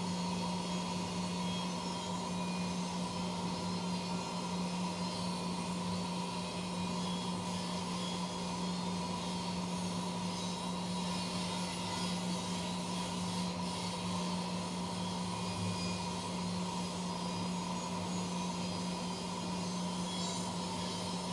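CNC machine running: a steady low hum with a fainter higher whine above it, over a constant hiss.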